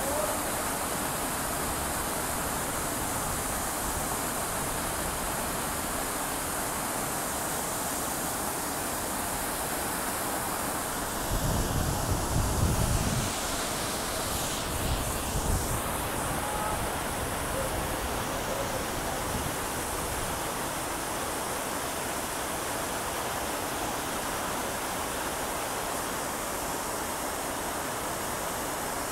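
Many jets of a plaza fountain splashing steadily into the pool: an even rush of falling water. A brief low rumble rises over it about eleven seconds in.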